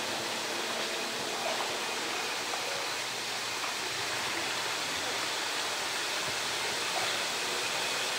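Steady rush of running water, an even hiss without breaks.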